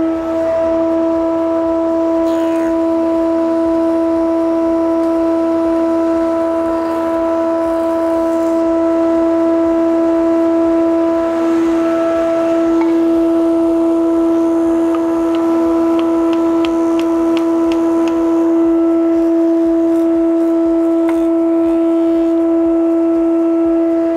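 Old thickness planer running unloaded on a test run after a pressure-bar adjustment: a loud, steady hum with a strong droning tone and its overtones, holding one pitch. A short run of faint, even ticks comes about two thirds of the way through.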